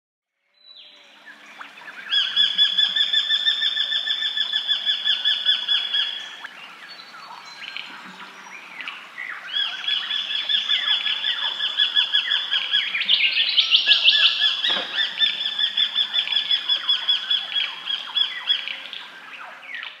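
Brown goshawk calling in a fast, even chatter of repeated notes, about four a second, in two long bouts with a short break between them. A single sharp click comes about fifteen seconds in.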